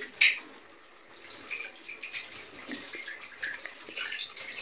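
Small wet splashes and squelches of seasoned chicken pieces being put into a glass bowl of buttermilk and egg, with one short sharp sound about a quarter second in and faint scattered splashes after a brief lull.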